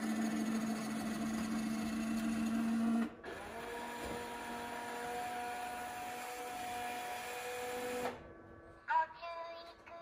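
Asahi Honnama Robocco beer-serving robot refrigerator's electric motors running: a steady hum for about three seconds, then after a brief break a second run of about five seconds while its clear dome lowers back over the can, stopping about eight seconds in. A short electronic chirp from the robot follows near the end.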